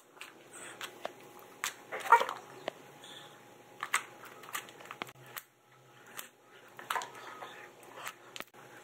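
Fluffy slime of toothpaste foam and white glue being pressed and kneaded by hand on a tabletop, giving irregular soft crackles, squishes and small pops, the loudest about two seconds in.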